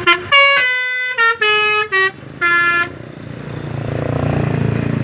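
Bus basuri telolet multi-tone horn playing a quick melody of about seven notes that mostly step down in pitch. After that the bus's engine rumble builds up and keeps running.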